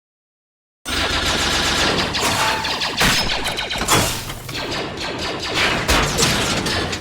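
Sci-fi battle sound effects: many blasters firing in rapid, overlapping volleys with impacts and crashes. It begins abruptly about a second in, after silence.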